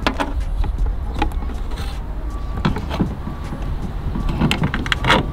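Scattered light clicks and knocks as a plastic LED taillight housing is handled and lined up against the car's rear quarter panel, over a steady low rumble.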